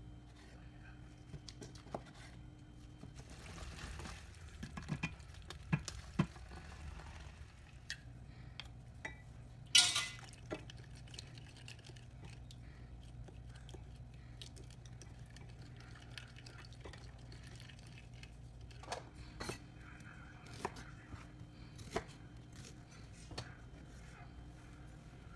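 Kitchen preparation sounds: scattered light clicks and knocks of dishes and utensils being handled, with one louder clack about ten seconds in.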